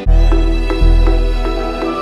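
Background music: deep held bass notes that change about every three-quarters of a second, under a quick repeating pattern of higher notes.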